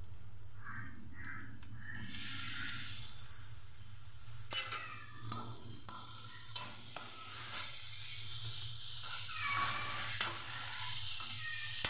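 Baby corn sticks dropped into hot oil in a kadai with onions, sizzling from about two seconds in, then a spatula clicking and scraping against the pan as they are stirred.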